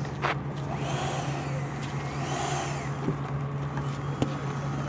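80mm electric ducted-fan RC jet taxiing on the ground: its fan whine rises and falls twice with throttle changes over a steady low hum, with a couple of sharp clicks.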